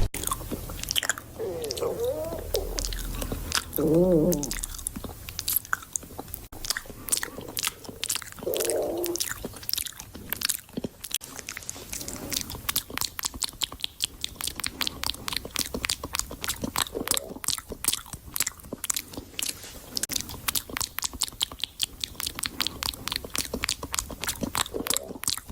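Chewing crunchy food close to the microphone: sharp crunches come about three to four times a second and grow denser after the first several seconds. A few short, wavering growls sound within the first ten seconds.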